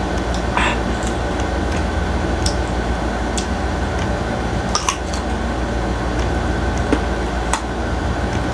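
Close-up eating sounds: a bite into a slice of unripe green mango topped with sardines and chili, then chewing, with a few short sharp clicks and crunches, the sharpest just before the middle. Under them runs a steady low machine hum, the loudest sound.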